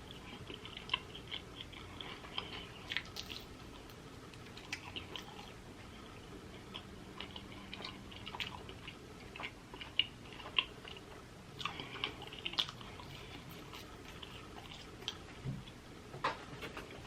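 Close-miked chewing and biting of pizza, with irregular wet mouth clicks and smacks throughout and a few louder bites about two-thirds of the way through.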